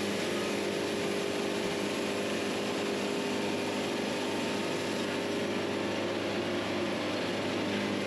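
Wood-Mizer LT70 sawmill's diesel engine running steadily at an even pitch.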